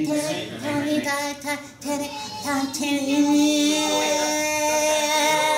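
Puppeteers singing in high, childlike puppet voices: a few short sung phrases, then one long held note from about three seconds in.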